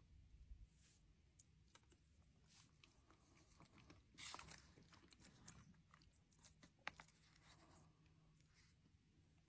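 Very faint eating sounds: a long plastic spoon scraping and stirring food in a foil MRE pouch, with soft pouch crinkles and clicks, a small cluster about four seconds in and a sharp click near seven seconds.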